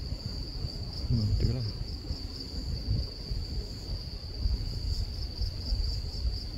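Insects chirring in a steady, high-pitched whine with a faint regular pulse, over a low rumble of wind on the microphone.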